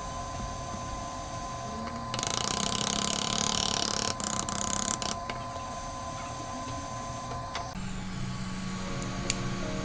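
Hobby-knife blade scraping adhesive residue off an iPhone XS Max's back glass: a rough, hissing scrape for about three seconds, broken by a few short gaps, over a faint steady tone.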